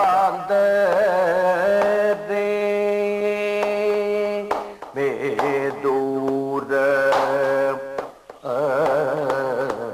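A male Kathakali singer sings a padam in Carnatic style: long held notes with wavering, ornamented glides. He breaks off briefly twice, and the phrase after the first break starts on a lower note.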